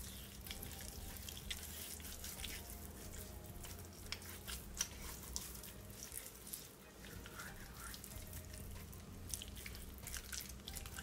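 Faint wet clicks and squelches of hands rubbing seasoning into a raw parrotfish, over a low steady hum.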